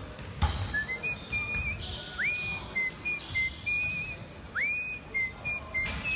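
Basketball shoes squeaking on a gym court: a string of short high squeaks at much the same pitch, two of them sliding sharply up, with sharp knocks between them that fit a ball bouncing.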